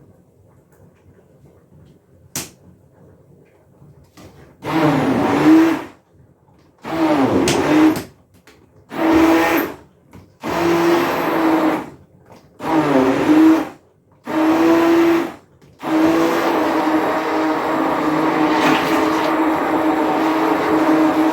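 Kitchen blender blending milk and banana: a click, then the motor pulsed in six short bursts of about a second each, then run continuously from about sixteen seconds in.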